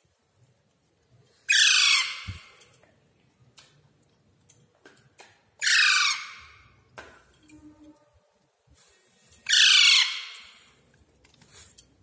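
A young green parakeet gives three loud, harsh squawks, roughly four seconds apart. Each lasts about half a second and falls in pitch.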